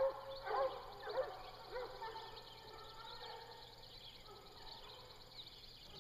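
A pack of bear hounds baying on a fresh bear track: short rising-and-falling bawls, several dogs overlapping, a little under twice a second and loudest in the first two seconds, then trailing off into a fainter chorus.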